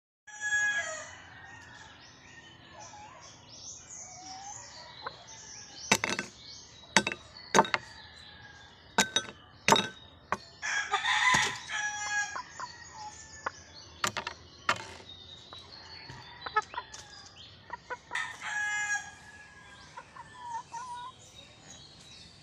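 Chickens: a rooster crows near the start and again near the end, with clucking between. A series of sharp taps comes from a beak pecking at a biscuit on a glass dish.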